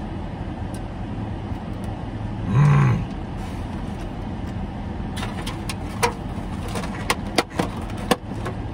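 Steady hum of a parked car's air conditioning running on high, with a brief voiced "mm" about two and a half seconds in. From about five seconds, a run of sharp crackles and clicks as a clear plastic takeaway food container is handled.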